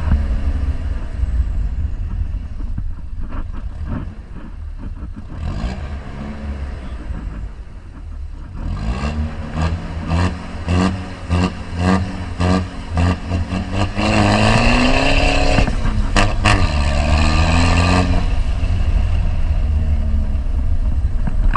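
Ford Ranger 3.0 pickup engine through a straight-through 4-inch exhaust, running loud. Well into it comes a run of quick throttle blips, then a rev held about four seconds with the pitch rising, dropping back to a steady run.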